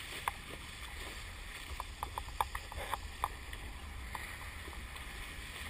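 Kiteboard planing fast over shallow water: a steady rush of spray and water noise over a low rumble, with a flurry of short sharp ticks of splashing droplets about two to three seconds in.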